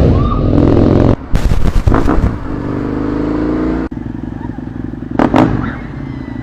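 Husqvarna Nuda 900R's parallel-twin engine revving loudly, its pitch climbing over a couple of seconds, then a sudden change to a quieter, steady engine note about four seconds in.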